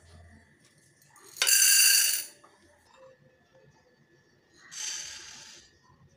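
Two ladlefuls of dry split lentils poured into an empty aluminium pressure cooker. There is a loud spill of grains for about a second, then a second, quieter pour of moong dal about three seconds later.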